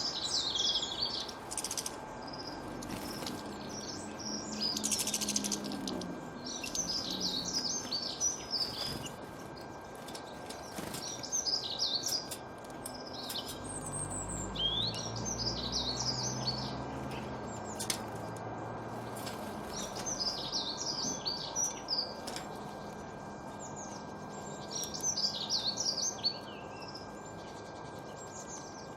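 Wild songbirds singing, with bursts of quick, high chirping phrases coming every few seconds over a steady background hiss. A faint steady high tone runs underneath, and a low rumble swells and fades about halfway through.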